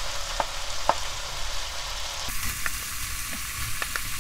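Squid sizzling as it stir-fries in oil in a frying pan, with handfuls of sliced vegetables pushed in from a bowl and several light knocks of the spatula against the bowl and pan.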